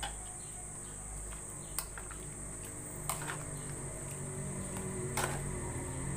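Metal spoon stirring broth in an aluminium pot, with a few sharp clinks against the pot about two, three and five seconds in. A steady high-pitched hum runs underneath.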